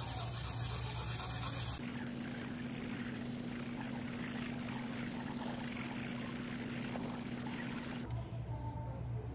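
Cloth with cream cleanser rubbed in circles on the glass top of an induction hob: a steady scrubbing. A low steady hum sits underneath and changes abruptly about two seconds in and again near the end.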